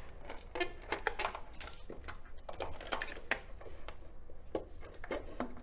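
Irregular light clicks and small metallic knocks, a few each second, of metal parts and connectors being handled and fitted at the back of a fridge.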